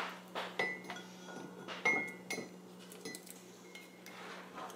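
An egg being tapped against the rim of a ceramic mug to crack it: several light taps, each a short clink, the loudest about two seconds in.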